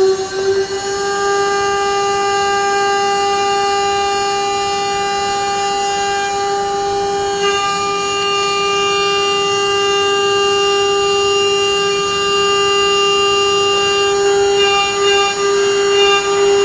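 CNC router spindle running at high speed: a steady, high whine with overtones that climbs slightly to pitch in the first second and then holds; the tone turns uneven near the end.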